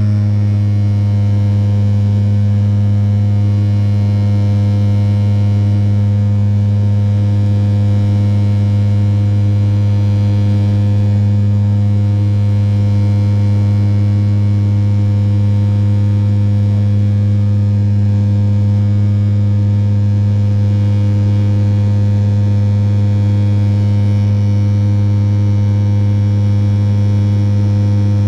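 Fokker 50's turboprop engine and six-bladed propeller droning steadily in the climb, heard from inside the cabin beside the engine: a loud, deep, unchanging hum with a stack of higher overtones.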